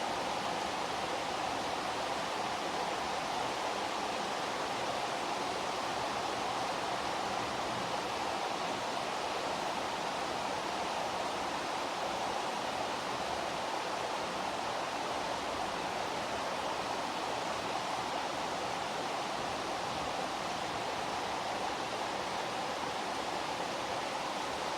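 Heavy rain falling in a steady, even rush, with no single drops or thunder standing out.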